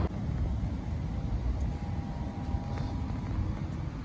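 Steady low rumble of outdoor street ambience: distant road traffic and wind on the microphone.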